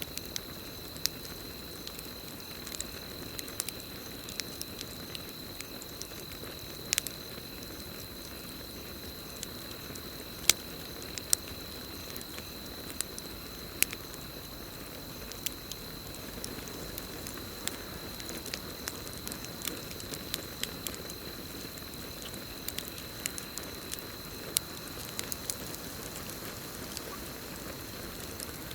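Campfire crackling: irregular sharp pops and snaps of burning wood over a steady low hiss, a few louder pops standing out near the middle. A steady high insect trill, crickets, sounds underneath.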